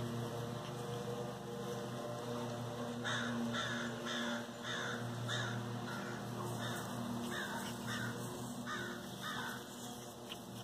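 A crow cawing in a steady series of about ten caws, roughly two a second, starting a few seconds in, over a steady low hum.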